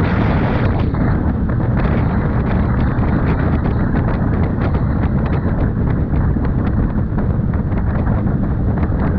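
Heavy wind buffeting on the microphone of a motorcycle moving at speed, a steady low rush with frequent short crackles through it.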